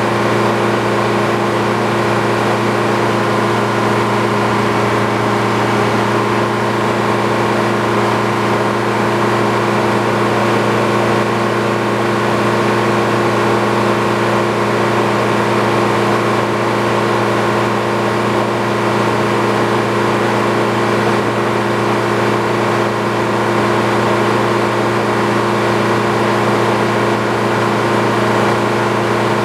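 Sawmill's engine running at a steady speed without let-up.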